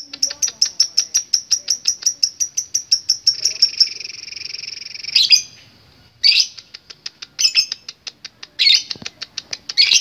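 Lovebird 'ngekek' chatter: a long run of rapid, sharp chirps, about seven a second, merging into a continuous buzzing trill for about two seconds. After a short pause the rapid chirps resume, broken by a few louder harsh squawks.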